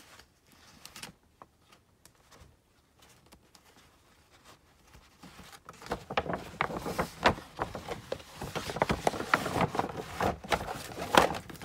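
Paper shopping bags rustling and crackling as they are handled. A quick run of crackles and light knocks starts about six seconds in, with only a few faint clicks before it.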